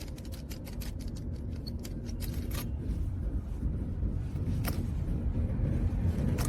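Low rumble of a car running, slowly growing louder, with a quick run of light clicks over the first couple of seconds and a few single sharp clicks later on.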